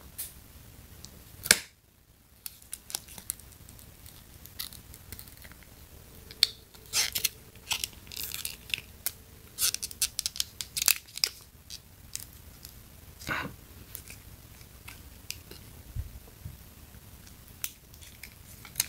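Soft clear TPU phone case being flexed and pressed onto an iPhone XS Max: irregular sharp clicks and brief scuffs of plastic against the phone's edges.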